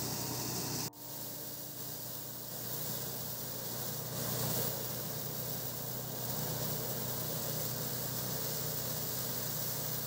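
Motorized rice threshing machine running steadily: a constant engine hum under an even hiss, with a brief break about a second in.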